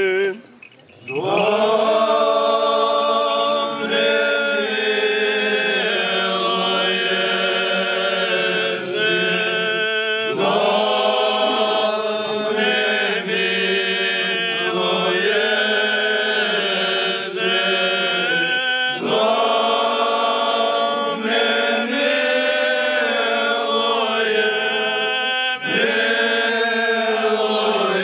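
Romanian Orthodox liturgical chant: voices singing a slow response in a litany for the departed, in long held phrases with short breaths between them. There is a brief pause about a second in.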